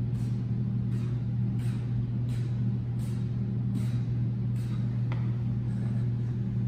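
A steady low machine hum, with faint short hisses of hard breathing about every two-thirds of a second from a man exercising between push-ups and punches.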